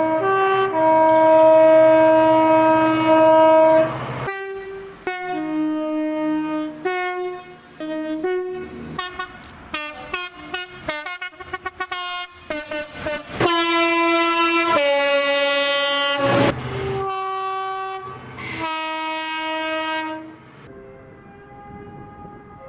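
Several British train horns sounding one after another, mostly in two-tone high-low blasts. A long blast near the start is followed by shorter toots and runs of rapid short toots. Another long, loud two-tone blast comes in the middle, and a fainter horn sounds near the end.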